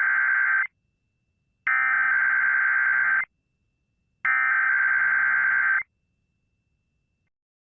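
Emergency Alert System SAME header: digital data tones (a buzzy warble of two rapidly alternating pitches) sent as three identical bursts about a second apart. The first burst ends just under a second in, and two more follow. This is the header that opens an EAS Required Weekly Test.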